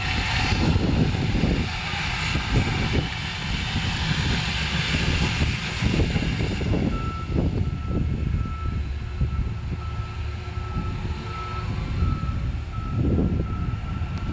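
Track maintenance machine working on the ballast, its engine running with a rushing hiss. From about halfway a high back-up alarm beeps on and off.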